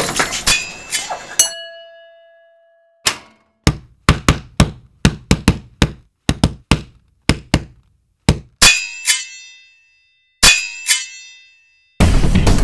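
A series of dubbed-in fight hit sound effects: sharp thuds and whacks with silence between them, coming about two a second in the middle. The loudest two, near the end, carry a metallic clang that rings on and fades.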